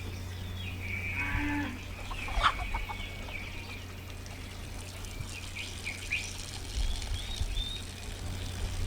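Farm animals calling: a goat bleats once about a second in, and short high bird chirps come later, over a steady low hum.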